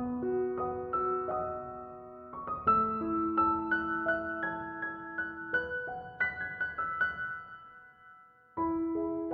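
Soft background piano music: a gentle melody of single held notes that fades out about eight seconds in, then starts again with a new phrase.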